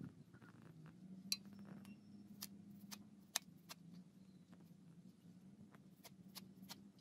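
Kitchen knife chopping leafy greens on a steel tray: scattered sharp clicks of the blade striking the metal, two louder ones about a second and three and a half seconds in, over a faint low hum.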